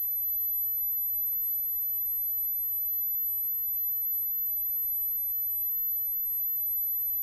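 A steady, very high-pitched tone holding unchanged over faint hiss.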